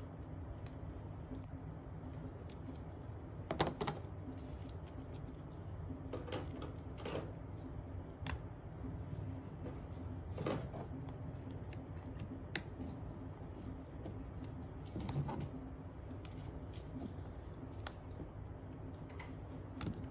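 Plastic toy train track sections handled and snapped together, giving scattered light clicks and taps, with a louder cluster of clicks about three and a half seconds in.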